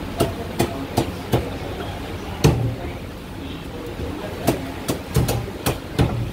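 Meat cleaver chopping poultry on a thick wooden chopping block: sharp, irregular strikes, about a dozen, with a quick run of them near the end.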